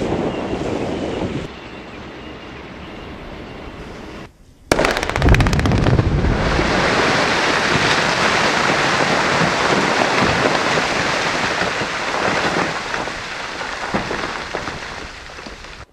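Quarry production blast: about five seconds in, a sudden loud blast with a rapid ripple of detonations as the blast holes fire in sequence, then a long rushing rumble of the broken rock face heaving and falling that slowly dies away. Before it, a steady rush with wind on the microphone as dust from an earlier shot rolls past.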